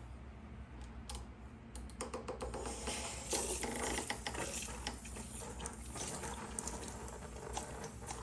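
Irregular light clicks and rattles over a faint hiss that grows louder about two to three seconds in.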